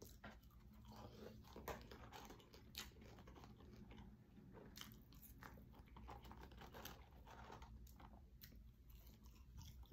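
Faint chewing of french fries: soft mouth clicks and small crunches, scattered and irregular.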